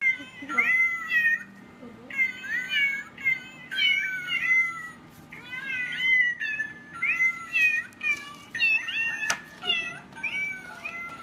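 Cat meowing over and over, short high-pitched calls that rise and fall, about two a second, with one sharp click about nine seconds in.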